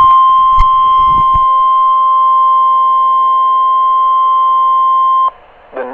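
NOAA Weather Radio's 1050 Hz warning alarm tone: a loud, steady single-pitched tone that cuts off suddenly about five seconds in, signalling that a new warning message follows. A few low thumps sound about a second in.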